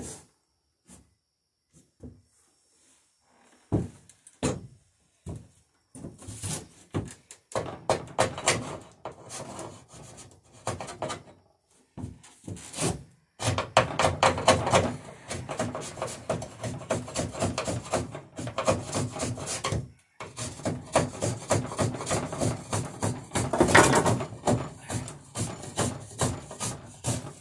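Hand woodworking on a dory plank: a few scattered knocks, then quick, repeated strokes of a hand tool shaving the wood, broken by a short pause about twenty seconds in.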